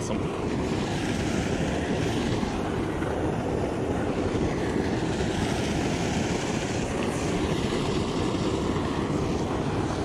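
Steady rushing of water pouring from a spillway into a creek.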